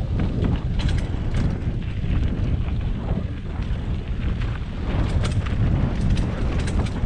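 Mountain bike descending a dirt trail: wind buffets the microphone with a steady low rumble, and sharp clatters come from the bike and tyres over bumps several times.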